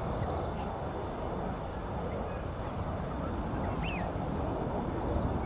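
Steady outdoor background rumble, with one short high bird chirp about four seconds in.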